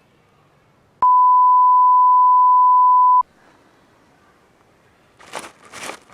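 A single steady high-pitched beep tone lasting about two seconds, starting and stopping abruptly. Near the end come two brief rustling crunches.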